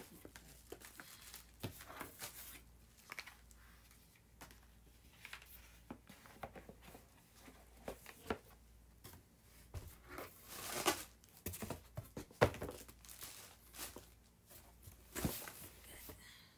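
Packaging being handled and unwrapped: irregular rustling and crinkling with scattered light taps and knocks, a few louder rustles in the second half.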